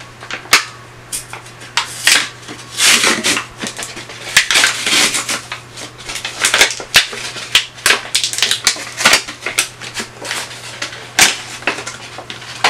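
Plastic blister pack on a card backing being pried and torn open by hand: a run of sharp crackles and clicks with bursts of crinkling plastic.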